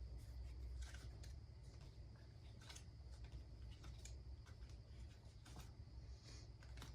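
Near silence: a faint low hum, with a few soft, scattered clicks spread irregularly through it.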